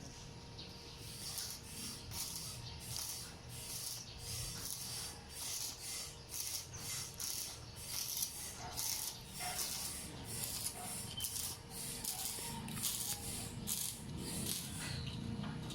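Back-and-forth hand scraping strokes, about two a second, over a faint steady hum.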